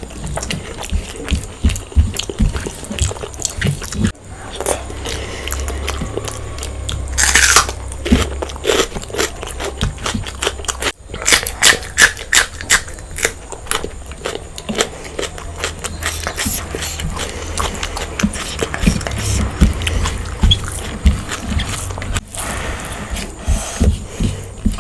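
A person eating spicy mutton goat head curry and egg biryani close to the microphone: irregular chewing, biting and crunching with short mouth clicks.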